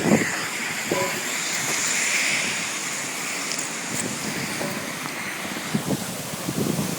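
Steady rushing hiss of air being forced out of a sewer manhole under pressure, swelling about two seconds in and then easing off.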